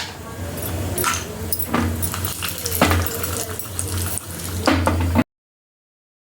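Cashews and a spoon clinking and tapping in a pan with a little ghee, over a steady low hum; the sound cuts to dead silence about five seconds in.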